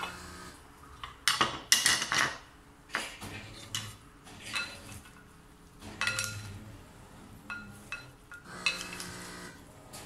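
Wooden salad servers tossing chopped cucumber salad in a glass bowl: irregular bursts of wood scraping and knocking against glass, with the wet rustle of the vegetables being turned over.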